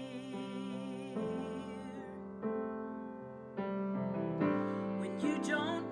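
Solo piano accompanying a female singer in a hymn: her held note with vibrato fades about a second in, piano chords are struck alone, and her singing comes back in near the end.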